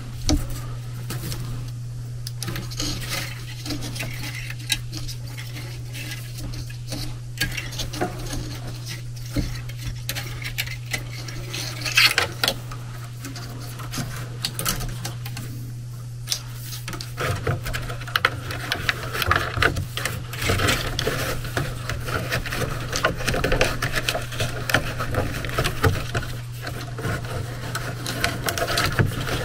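Hands working at an air handler's evaporator coil: rustling, scraping and light metallic clicks from sensor wires, copper tubing and a scrub pad, over a steady low hum.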